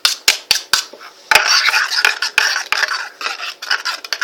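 A spoon stirring slime in a bowl, clicking and scraping against the sides, as the glue mixture gels with the added borax water. A few sharp taps come first, then a thicker run of scraping after about a second.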